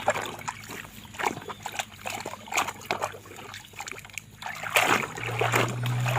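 Water splashing and trickling in irregular bursts as a large muddy toy truck is handled and rinsed in water. A low steady hum comes in near the end.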